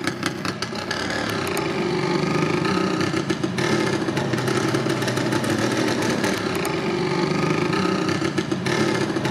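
ČZ 501 Čezeta scooter's 175 cc single-cylinder two-stroke engine being ridden: uneven popping for the first second, then a steady buzz that rises and falls in pitch as it pulls along.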